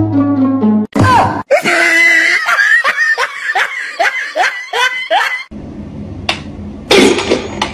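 A moment of light music, then high-pitched laughter: a quick run of short bursts, about three a second, for some four seconds. Near the end come a few sharp clicks.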